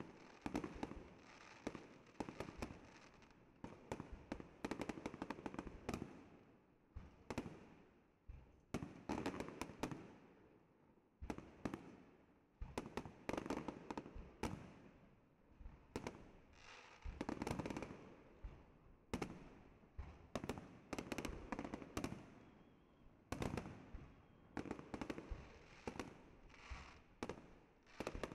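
Fireworks display: aerial shells bursting in rapid clusters of bangs and crackles, with short lulls between volleys.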